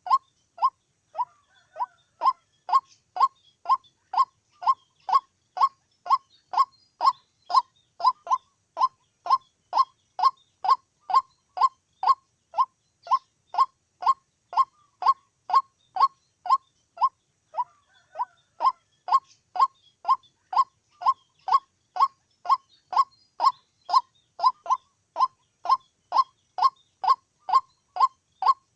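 White-breasted waterhen giving its monotonous repeated 'kwok' call: short, identical notes at about two a second, with a brief pause near the start and another about two-thirds of the way through.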